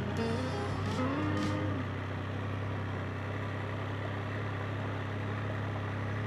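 Can-Am Spyder F3 Limited three-wheeler's engine running at a steady speed, a low even drone.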